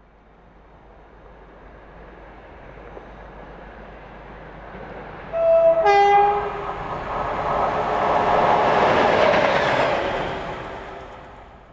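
Class 57 diesel locomotive approaching and sounding a two-tone horn, a high note then a low one, about five and a half seconds in. It then runs past, its engine and wheel noise swelling loud and fading away.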